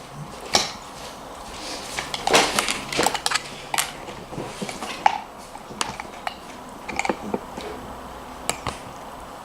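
Irregular light clicks, taps and clatter of small containers and utensils being handled on a tabletop while slime is worked into a shaper mould, with a few louder knocks two to three seconds in and again about five seconds in.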